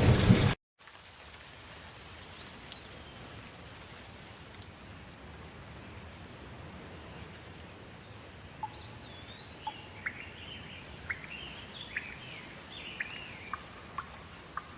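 Heavy rain with thunder cuts off abruptly in the first second. Then a faint steady hiss with birds chirping and whistling, a few at first and many short calls in the second half.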